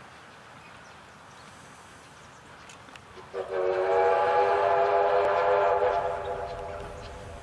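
Steam whistle of Victorian Railways J class locomotive J549: one long, loud blast that starts about three seconds in, holds for about three seconds and then fades, over a faint steady background noise.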